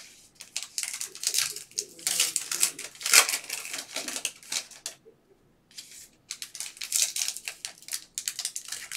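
Foil trading-card pack wrappers crinkling and cards being handled and slid against each other by hand. It is a run of quick scratchy rustles, with a short pause about halfway through.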